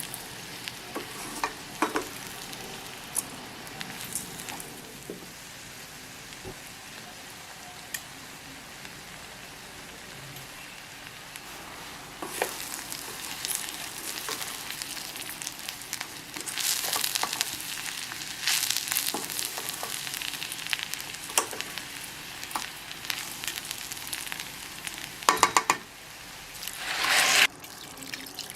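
Food frying in hot oil in a pan, sizzling steadily, with scattered knocks of a utensil. The sizzle grows louder in stretches in the second half; a quick run of taps comes near the end, then a rising louder burst that cuts off suddenly.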